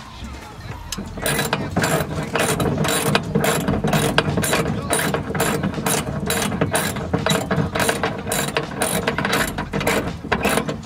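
Hand ratchet wrench working a bolt, its pawl clicking in quick repeated runs of about three or four clicks a second, steady from about a second in.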